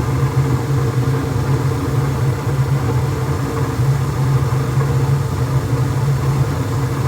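Gas furnace running with its newly installed inducer motor humming steadily.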